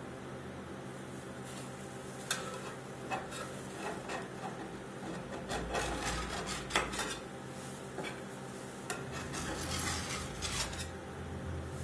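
Metal scraper scraping and rasping across a frozen steel ice-pan, pushing strips of frozen ice cream base up into rolls, in irregular strokes with sharp clicks starting about two seconds in, over a steady low hum.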